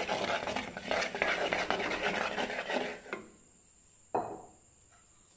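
A coconut-shell spoon scraping and stirring a thick ginger-garlic paste against the inside of a clay cooking pot. The stirring stops about three seconds in, and a single sharp knock follows about a second later.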